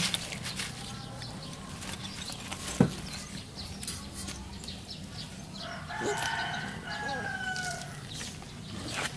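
A rooster crows once, starting about six seconds in: one long pitched call that falls at the end. Earlier, about three seconds in, there is a single short, sharp knock.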